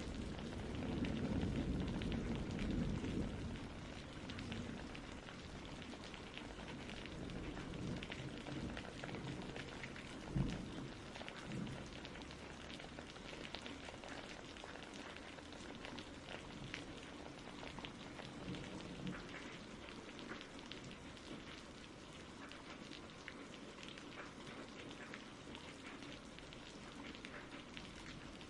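Steady rain pattering with many small drop sounds, with a low rumble of thunder fading over the first few seconds. A single sudden low thump comes about ten seconds in.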